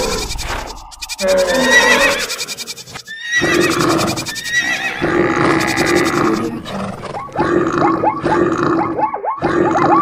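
Stampede sound effect made of mixed animal calls, one after another with short breaks. In the second half the calls become a rapid run of short falling cries, several a second.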